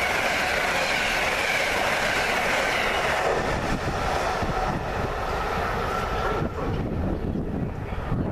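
Amtrak passenger train passing at speed: the rush and clatter of its stainless-steel Amfleet coaches' wheels on the rails, fading over the first few seconds as the last car clears. A low rumble remains near the end.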